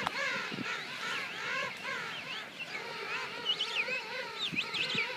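King penguin colony calling: many overlapping warbling, trumpeting calls that waver up and down in pitch. From about three seconds in there are higher, sharp rising-and-falling whistles, typical of king penguin chicks, along with a few short low sounds.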